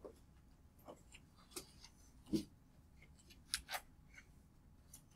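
Faint, scattered small clicks and taps. The loudest is a knock a little over two seconds in, and two more come close together about three and a half seconds in.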